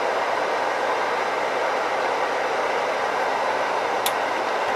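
Steady rushing noise, with one light click about four seconds in.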